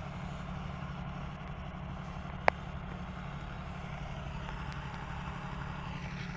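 Steady low motor hum, with one sharp click about two and a half seconds in.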